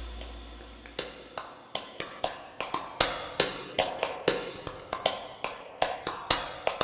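Blue zigzag-blade craft scissors snipping through paper, a run of sharp crisp snips at about two to three a second.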